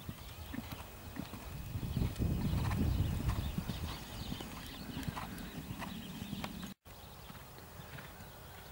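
Hoofbeats of a ridden horse cantering on a sand arena: dull, uneven thuds with light crunching of the footing. The sound drops out for an instant about seven seconds in.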